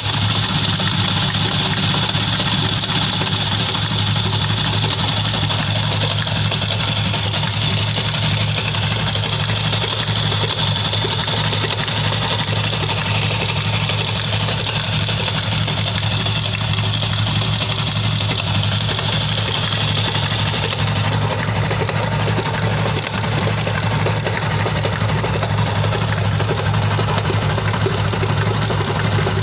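Yamaha Y15ZR's 150 cc single-cylinder engine idling steadily, making the abnormal noise the owner wants diagnosed.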